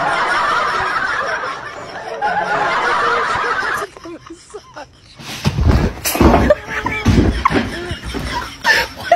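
A person laughing hard and continuously for about four seconds, cut off abruptly. After a short lull, several low thumps and scattered short voice sounds follow.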